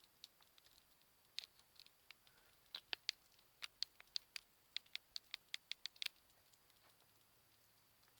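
Sugar gliders making a quick run of small, sharp clicks and taps, about four a second, starting about a second in and stopping a couple of seconds before the end, over near silence.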